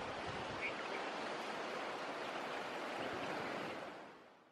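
Steady outdoor wind noise with no distinct events, a faint short chirp about a second in, fading out near the end.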